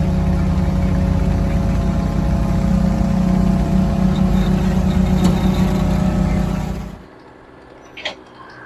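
A large engine running steadily and loudly, with a strong low hum, cutting off abruptly about seven seconds in; a quieter outdoor background follows, with a brief high chirp near the end.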